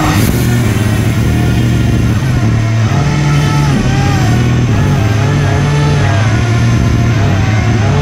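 RC hovercraft's electric fans (HP server fans) running at speed, a loud steady whine and rush whose pitch wavers up and down as the throttle changes while the craft drives off.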